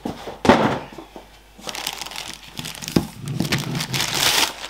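A clear plastic protective bag around an AIO liquid-cooler radiator crinkles and rustles in bursts as hands handle and open it, loudest near the end. There is a short sharp tap about three seconds in.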